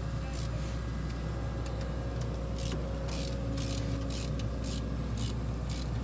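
An engine idling steadily, making a low even hum, with several brief scratchy handling noises over it.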